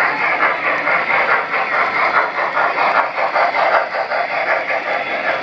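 Model train running on a layout: a steady, continuous rolling clatter.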